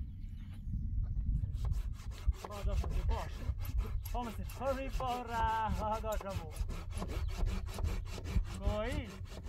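Wood being worked by hand with rapid, even rasping strokes, about five a second, starting after a second or so and going on steadily. Several drawn-out, pitch-bending calls sound over it in the middle and again near the end.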